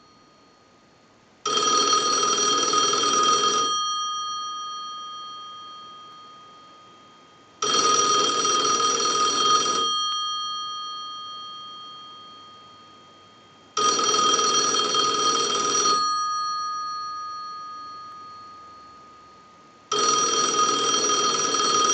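Single-slot payphone's ringer bells ringing four times in a regular cycle, each ring about two seconds long with about four seconds between, the bells fading out slowly after each ring. This is a ring cycle sent from a telephone analyzer, showing that the payphone rings in on an incoming call.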